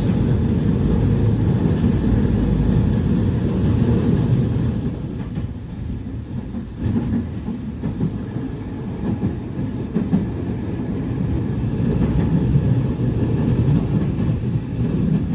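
JR West 207 series electric train running on the track: a steady low rumble with wheels clicking over rail joints, easing to a quieter level about five seconds in.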